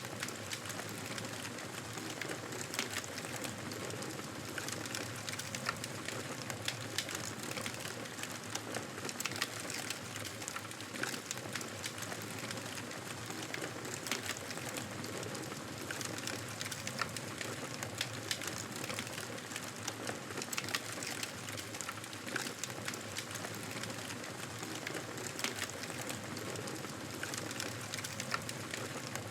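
Wood fire burning in a fireplace: a steady crackling hiss with many small, sharp pops at irregular moments.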